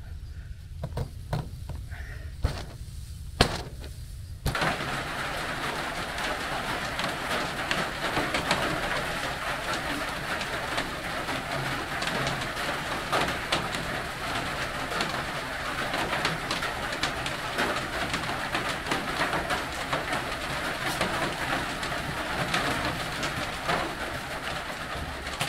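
A few sharp knocks as a tent stake is set into the ground. Then, from about four and a half seconds in, steady rain falling on a corrugated metal shelter roof, a dense even hiss of drops.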